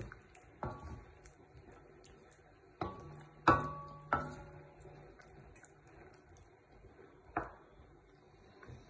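Cookware clinks: about five separate knocks of a utensil or lid against a metal pot, the loudest, a little over three seconds in, ringing briefly.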